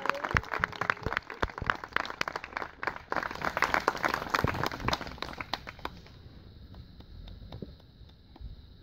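A small crowd applauding with many hands clapping, dying away about six seconds in.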